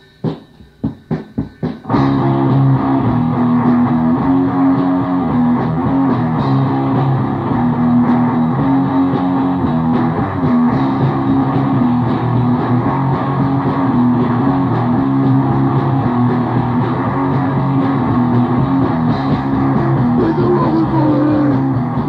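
Grindcore band on a demo-tape recording. A few quickening sharp drum hits, then about two seconds in electric guitar and drums come in all at once as a dense, loud, unbroken wall of sound.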